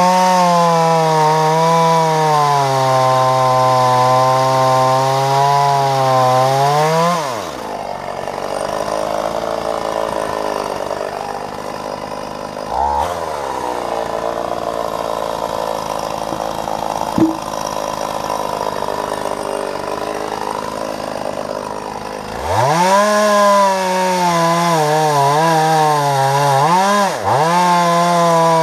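Vintage Husqvarna 44 two-stroke chainsaw bucking logs at full throttle, its pitch wavering as the chain bites. About seven seconds in it drops back to idle for some fifteen seconds, then revs up sharply and cuts again.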